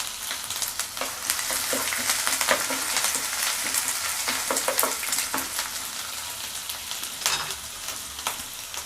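Crushed garlic and ginger with curry leaves frying in hot coconut oil, a steady sizzle full of sharp crackles, with the scrape and knock of a spoon stirring in the pan.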